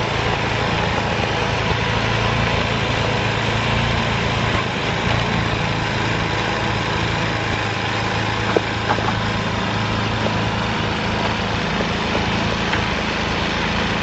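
An engine running steadily at a constant speed, with a brief knock about eight and a half seconds in.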